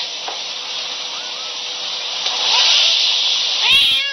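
Steady hiss, swelling a little past the middle, with a cat beginning to meow near the end, its call rising in pitch.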